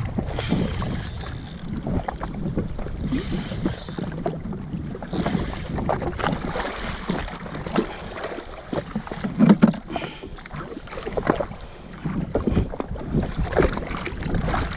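Water slapping and splashing against the hull of a jet ski drifting at sea, with wind buffeting the microphone and irregular small knocks.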